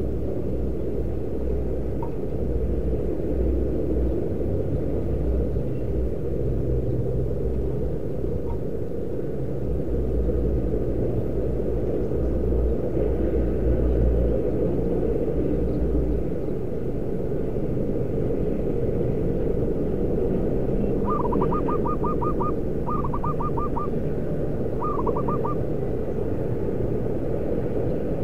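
Steady low rumble throughout. About three-quarters of the way in, a zebra dove calls in three short bursts of rapid staccato cooing notes.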